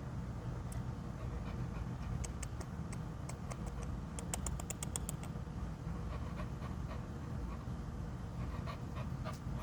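A young dog panting, with light clicks and a quick run of clicks about four to five seconds in, over a steady low rumble.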